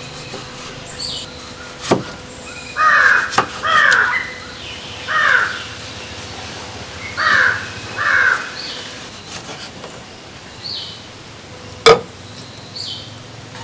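A crow cawing five times, harsh calls spaced about a second apart, over the sharp knocks of a kitchen knife slicing tomatoes on a wooden chopping block. The loudest single sound is one knock near the end.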